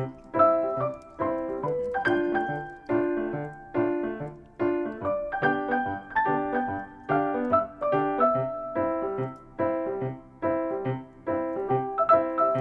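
Background piano music: a light, rhythmic piano tune of repeated struck notes and chords.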